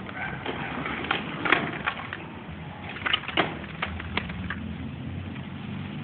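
Skateboard on pavement: the wheels rolling steadily with several sharp clacks of the board, most of them bunched about three to four seconds in.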